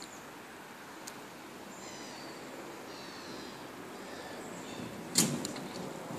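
Inline skate wheels rolling on asphalt, the rolling noise growing a little louder, with one sharp clack about five seconds in.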